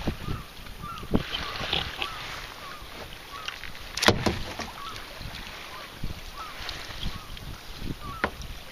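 Water lapping and dripping against a kayak drifting at rest, with small splashes and faint wind rumble, and one sharp knock about four seconds in.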